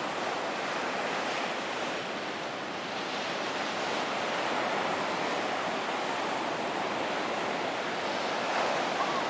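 Pacific Ocean surf washing onto the beach: a steady, unbroken rush of breaking waves.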